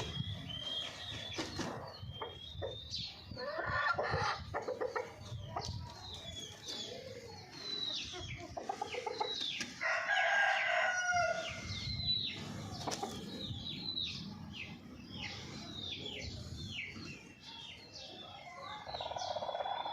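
Golden Misri chickens clucking and calling, with one long crow about ten seconds in, over many short high, falling peeps repeating throughout.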